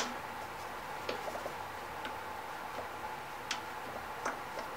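A few faint, widely spaced clicks as a spark plug boot is pushed onto and worked on the end of a spark plug, testing whether its squeezed metal terminal now grips the plug tighter.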